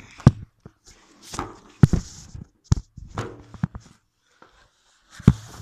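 Irregular thuds and knocks with rustling in between: a phone being carried and handled while someone walks. There are four loud knocks, near the start, about two seconds in, a little after that, and near the end.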